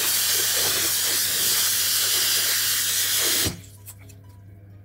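Water running from a kitchen tap in a steady hiss as vegetables are washed under it, turned off abruptly about three and a half seconds in.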